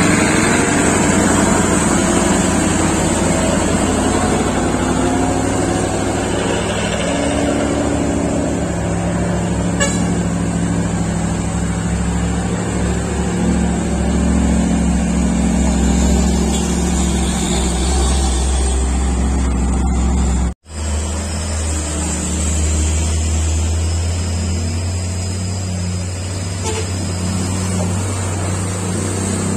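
Heavy diesel trucks running at low speed under load as they crawl around a steep hairpin bend: a deep, steady engine drone over a steady high hiss. The sound breaks off for an instant about two-thirds of the way through.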